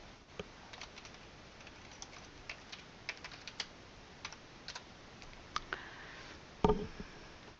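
Computer keyboard keys pressed in irregular, scattered clicks, with a louder knock against the desk near the end.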